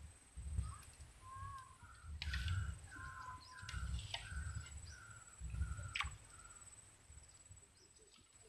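A forest bird calling a run of short, evenly spaced notes for a few seconds. A steady high-pitched whine runs underneath, and there are a few sharp clicks and low thumps from handling near the microphone.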